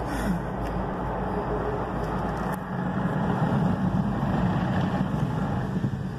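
Automatic car wash heard from inside the car's cabin: water spraying onto the windshield and body over a steady machinery hum, which grows a little louder about three seconds in.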